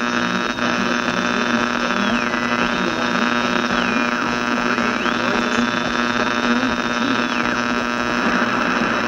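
Heavy mains hum and hiss from a worn vintage soundtrack. Over it a thin, high whistling tone slides down and back up three or four times.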